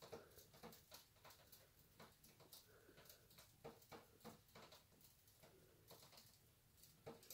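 Near silence with faint, irregular small clicks and taps.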